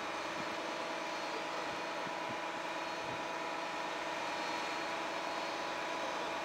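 Volvo FM fire truck's diesel engine running steadily at a constant pitch, a level hum with a faint whine in it.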